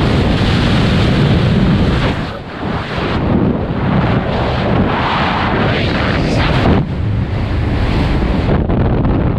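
Freefall airflow rushing over a skydiver's helmet-mounted camera microphone: loud, continuous wind buffeting that dips briefly about two seconds in.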